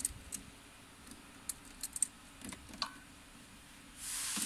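Scattered light clicks and taps of small plastic and metal parts as a wire is fitted into a switch terminal. A steady hiss starts near the end.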